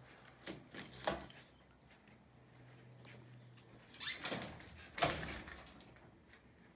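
An interior wooden door is handled and pushed open. A few light clicks come first, then two louder swishing knocks about four and five seconds in.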